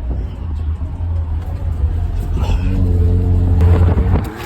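Infiniti Q50 exhaust with test pipes (catalytic converters replaced by straight pipes) running loud under acceleration, a deep rumble that builds with a droning tone in its second half, then drops off suddenly just before the end.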